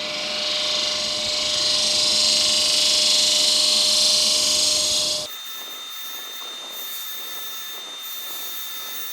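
Hunter Badger tool shear-scraping a spinning monkey puzzle wood urn on a lathe: a steady hiss of cutting that builds and then stops abruptly about five seconds in as the tool comes off the wood. After that a quieter running sound remains, with a thin steady whine.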